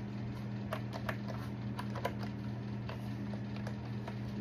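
Light, irregular clicks of keys being tapped on a laptop keyboard, over a steady low hum.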